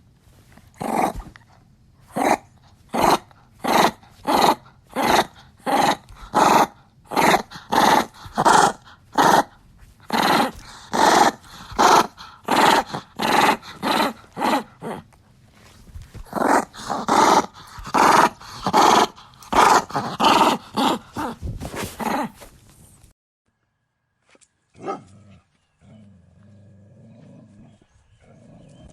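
A dog barking and growling in short, loud, evenly repeated bursts, about one and a half a second, with a brief pause midway. The bursts stop near the end, leaving only quieter, lower sounds.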